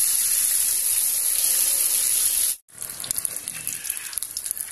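Hot oil sizzling around boiled eggs frying in a stainless steel pan, a steady hiss. About two and a half seconds in it cuts off abruptly and comes back quieter, with scattered crackles and pops.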